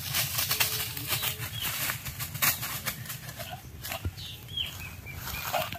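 Rustling and crackling of dry leaf litter and undergrowth, in many irregular short clicks, as a goat on a rope scuffles against being led. A few short high chirps stand out over it.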